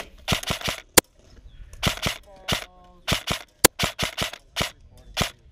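Krytac SPR Mk2 airsoft electric rifle firing single shots in quick succession, often in twos and threes, each a sharp snap.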